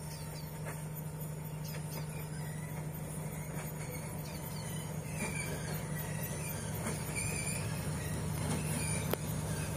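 D19E diesel-electric locomotive hauling a passenger train, approaching: a steady low engine drone that grows gradually louder.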